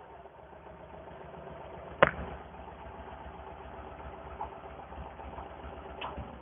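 Citroën 2CV's air-cooled flat-twin engine idling steadily through its exhaust after a rev has died down, with a single sharp crack about two seconds in.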